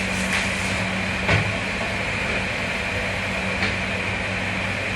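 Steady hum of commercial kitchen machinery, with a single short knock or clatter about a second in.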